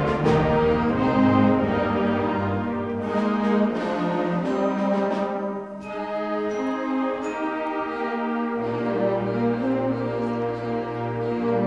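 Orchestral music with brass, playing sustained chords; it thins briefly about six seconds in, then a low held bass note comes in.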